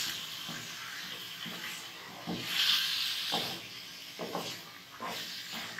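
Raw chicken pieces frying with onion and ginger-garlic paste in hot oil in a nonstick wok, a steady sizzle that swells about two and a half seconds in. A wooden spatula turning the meat scrapes and knocks against the pan about once a second.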